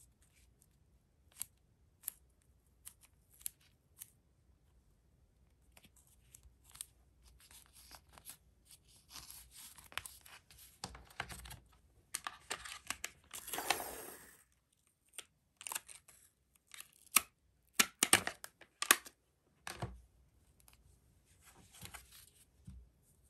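Tape being peeled and pulled off and paper and cardboard being handled: soft rustles and scratchy tearing, with one longer tearing pull about two-thirds of the way through. Scattered small sharp clicks and taps throughout, the loudest a quick run of them shortly after.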